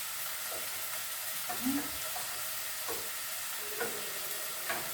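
Steady sizzling of food frying in a pot on the stove, with four or five short knocks of a utensil against the cookware as the food is stirred.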